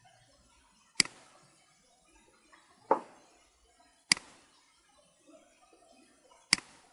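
Computer mouse buttons clicking close to the microphone, four separate clicks spaced a second or two apart, the second one duller than the rest, as controls are selected and dragged in a form designer.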